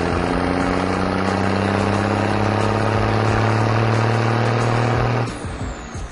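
Vehicle engine running steadily, its pitch creeping slightly upward, then cutting off about five seconds in.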